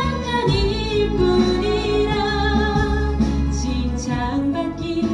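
A woman singing a Korean Christian praise song into a microphone, with a wavering held melody over an instrumental accompaniment of sustained notes and bass.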